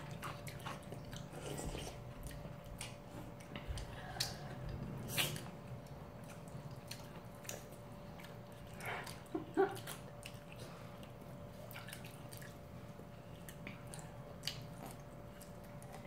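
Close-up eating sounds from two people: chewing of cold noodles and rice cakes, with scattered small clicks of chopsticks against bowls.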